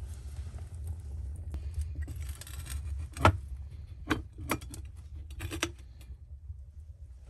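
Wood fire burning in a fireplace firebox, then the cast-iron firebox door is shut with a loud metallic clank about three seconds in, followed by a few lighter metal clicks as its latch is worked.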